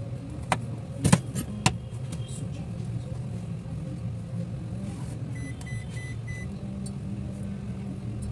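Knife chopping a lime on a cutting board, a few sharp knocks about a second in, over a steady low hum. About five and a half seconds in, an electronic appliance gives four short beeps.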